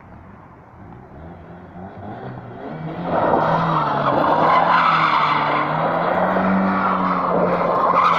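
Car tyres squealing in a skid while the engine runs under load. The sound builds up over the first few seconds and is loud from about three seconds in.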